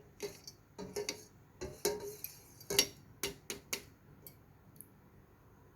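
Water dripping: a quick run of irregular short drops, about a dozen, that thin out and stop about four seconds in.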